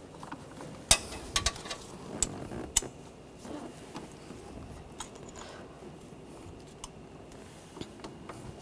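Sharp metallic clicks and clinks from hand tools on the water pump pulley bolts as they are tightened. There is a cluster in the first three seconds, the loudest about a second in, then single clicks near the middle and near the end.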